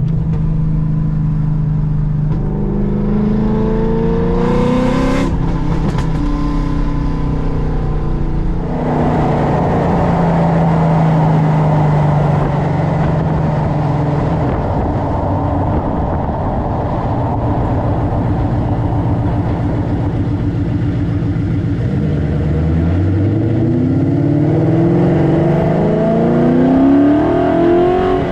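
Ford Mustang Boss 302's 5.0-litre V8 through aftermarket side pipes, accelerating on the road, heard from inside the car with the windows down. The engine pitch climbs, drops at a gear change about five seconds in, runs loud and rough under throttle for about ten seconds, then climbs again from low revs near the end.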